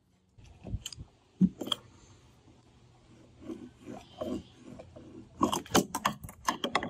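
Small toys knocking on wooden deck stairs: a few separate knocks about a second in, then a quick run of clatters near the end as a toy tumbles down the steps.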